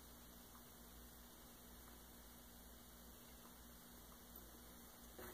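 Near silence: room tone with a faint steady electrical hum, and a faint click near the end.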